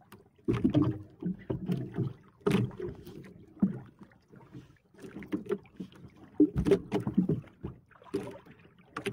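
Irregular knocks and thuds on a small wooden outrigger boat at sea, with water sloshing against the hull, a few of the knocks sharper and louder than the rest.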